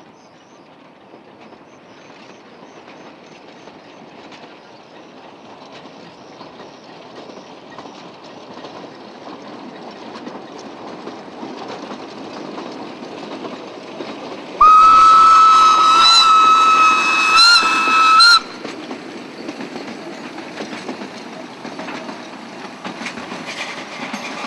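Narrow-gauge steam locomotive and its wagons running on the line, growing steadily louder as the train approaches. About two-thirds of the way in, the locomotive's steam whistle gives one long, loud blast of nearly four seconds, with a couple of short pitch blips near its end, then cuts off sharply as the wagons roll past with light clicks.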